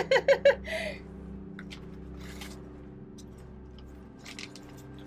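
A short laugh about a second long at the start, then soft, scattered rustling and crinkling of crumpled book pages used as packing paper as they are handled, over the steady hum of a room fan.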